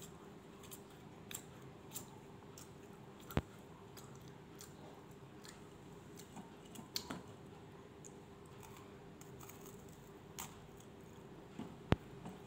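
Dry Jacob's cream crackers being broken by hand and chewed: scattered soft crunches and clicks, with two sharper cracks about three seconds in and near the end, over a faint steady hum.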